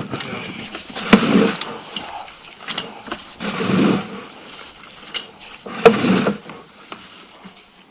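Sewer inspection camera push cable being fed down the sewer pipe: about three bursts of rough scraping and rattling, with sharp clicks and knocks between them.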